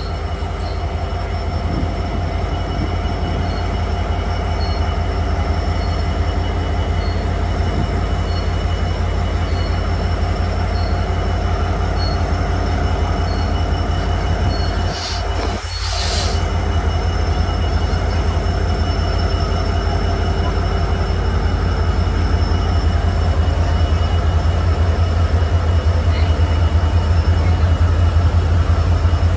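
Diesel-hauled passenger train creeping along the platform: a steady low locomotive rumble with the wheels squealing on the rails, growing louder toward the end.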